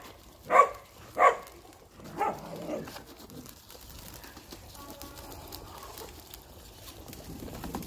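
Pekin ducks quacking: two loud quacks in the first second or so and a couple of softer ones about two seconds in, then the faint sound of ducks dabbling and pecking at grain in a plastic feed bowl.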